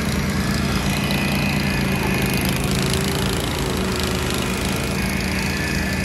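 Riding lawn mower engine running steadily under load as the mower is driven up a muddy slope.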